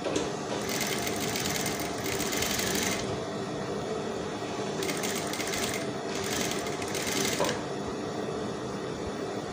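Table-mounted straight-stitch sewing machine stitching in two runs, the first lasting about two and a half seconds, the second starting about five seconds in, over a steady motor hum. It is sewing a long basting stitch to hold layers of net together as one piece.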